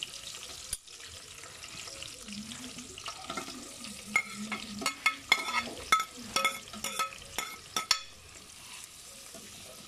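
Metal spoon scraping chopped vegetables off a plate into an aluminium pot, with a quick run of clinks against the metal between about three and eight seconds in that ring briefly, over a steady sizzle from the pot on the hot plate.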